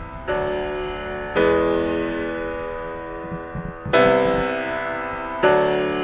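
Background piano music: four slow chords, each struck and left to ring and fade before the next.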